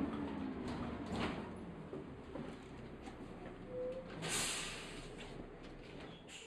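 Inside a Dennis Dart single-decker bus: the engine drone dies away over the first second or two as the bus slows to a standstill, with small rattles from the cabin. About four seconds in comes a short hiss of compressed air.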